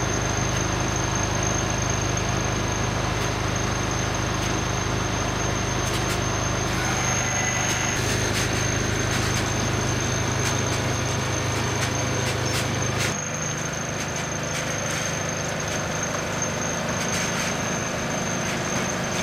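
Heavy-haul MAN truck's diesel engine running steadily at low revs, with a thin steady high whistle over it. The engine note drops a little after about thirteen seconds.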